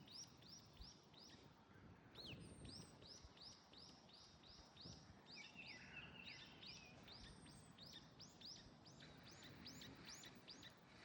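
A bird chirping a rapid, steady run of short high notes, about three or four a second, pausing briefly now and then, over a low rumble of background noise.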